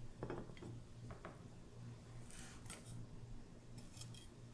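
Faint clicks and short scrapes of a steel knife blade against a ceramic plate as slices are pushed into place, with a few crisp high ticks about halfway through and again near the end, over a low steady hum.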